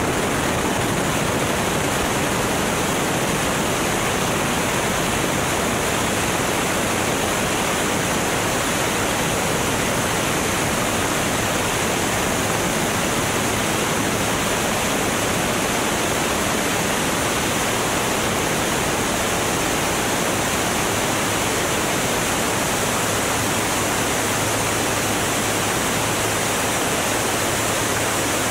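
Onboard sound of a Formula One class racing plane on its full-power takeoff roll: the Continental O-200 engine and rushing air merge into a steady, even rush with no distinct engine note.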